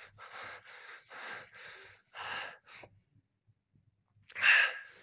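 A person breathing hard and fast close to the microphone, about two breaths a second. The breathing pauses for about a second, then comes one much louder breath about four and a half seconds in.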